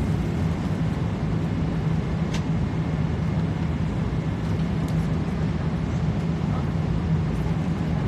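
Steady drone of an airliner cabin: engine and air-circulation noise with a low hum, with a faint click about two seconds in.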